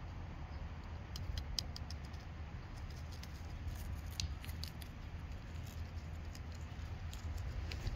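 Kittens' paws scampering and pouncing on dry straw and grass: light, irregular crackles and rustles in short clusters, over a low steady rumble.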